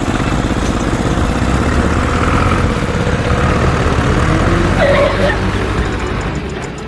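Vehicle engine running with a steady, low rumble, as of the mini truck setting off. A short, higher-pitched squeal sounds about five seconds in.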